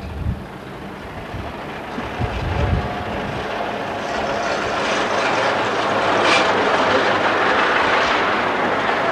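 Two Model T Fords, with four-cylinder side-valve engines, driving towards the listener and passing close by. Their running grows steadily louder as they approach and is loudest as they go past in the second half.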